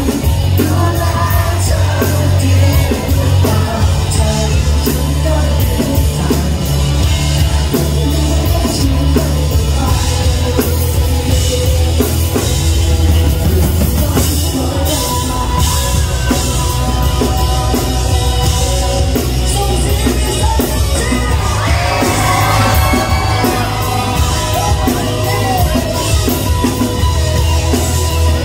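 Live band playing a pop-rock song: drum kit and bass driving a steady beat, with saxophone and singing over them.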